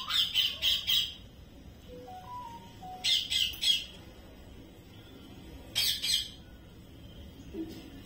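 Rose-ringed parakeets calling in short, shrill squawks, in three bouts: a quick run of about four right at the start, three more about three seconds in, and a shorter burst about six seconds in.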